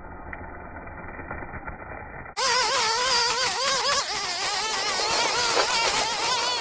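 Black Max four-stroke string trimmer running while cutting thick weeds. It is faint and muffled at first, then loud from about two seconds in, its engine pitch wavering up and down as the line works through the growth.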